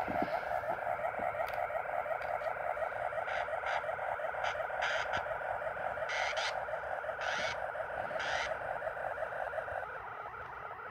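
Korg Monotron Delay analog ribbon synthesizer playing a single tone that wobbles rapidly and regularly under its LFO, with a few short brighter flares partway through as its knobs are turned.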